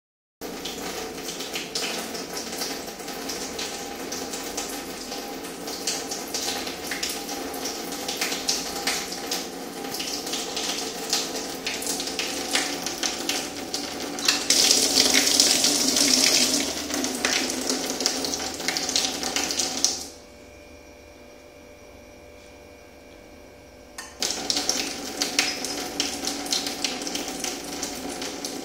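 A thin stream of tap water splashing into a stainless steel sink. The stream runs steadily and grows louder around the middle, then stops for about four seconds in the latter part before running again.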